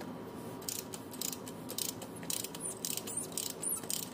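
Socket ratchet wrench clicking in short repeated strokes, starting about half a second in, as a fastener on a truck's diesel engine is tightened.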